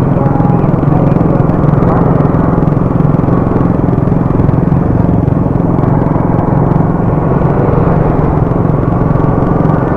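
Motorcycle engine running steadily while riding at an even speed, with road noise.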